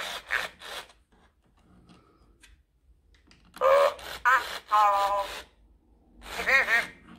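1998 Furby talking in its high-pitched electronic toy voice, set off by being petted: a warbling call that ends about a second in, a longer run of chirpy phrases midway and one more call near the end. The toy's small motor whirs as its eyes, ears and beak move.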